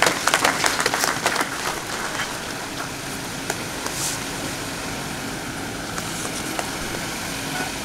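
Audience applauding after a speech, densest in the first second or two, then thinning out into a steady background noise.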